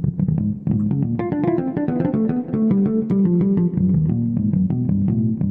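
Soundtrap's 'Bass Harmonics' electric bass instrument played from a computer keyboard: a quick run of plucked bass notes, several a second, stepping up and down in pitch and stopping near the end.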